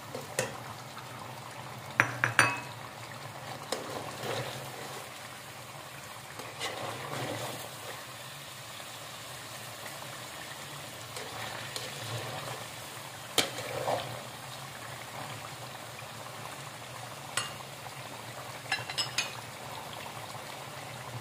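A pot of chicken curry simmering with a steady bubbling sizzle while a slotted metal spatula stirs it. The spatula clinks sharply against the metal pot a few times: twice close together about two seconds in, once about 13 seconds in, and in a quick run near the end.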